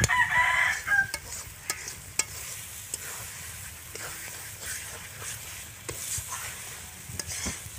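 Metal spatula scraping and stirring thick masala paste in a steel kadai, the paste sizzling with a little water added as it is fried down. A short pitched call sounds in the first second.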